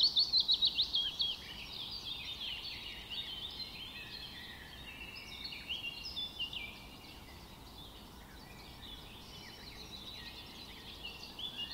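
Small birds chirping outdoors over faint background noise. A quick run of falling notes, about six a second, opens the passage, then varied overlapping chirps follow, thinning out around the middle and picking up again near the end.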